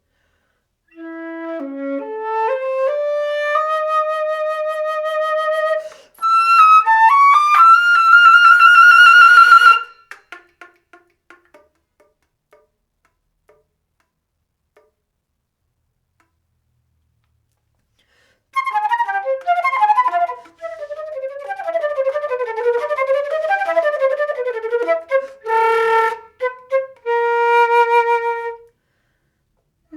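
Solo concert flute playing a contemporary piece. A rising stepwise line climbs to a held note, then a second, louder rising phrase ends on a high held note and breaks off into faint short ticks. After a pause of a few seconds comes a fast flurry of notes, a sharp accented note, and a held lower note.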